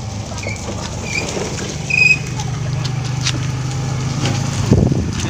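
A steady low engine hum, with a few short high chirps in the first two seconds and a thump near the end.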